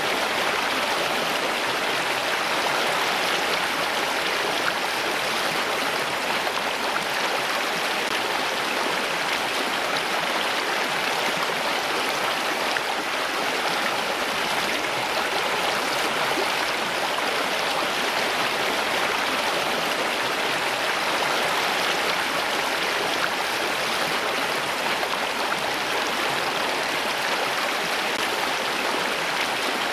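Steady running water: an even rush with no separate drops, splashes or changes.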